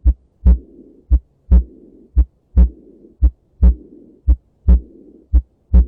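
Heartbeat: about six regular cycles of paired heart sounds, roughly one a second, each a short sharp beat followed by a louder, fuller one. A soft whooshing murmur fills the longer pause after each second beat, up to the next one.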